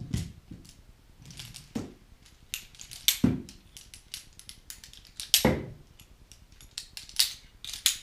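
Carabiners being clipped onto a rigging swivel by hand: irregular sharp metallic clicks and clinks of gates snapping and hardware knocking together, the loudest a little past halfway.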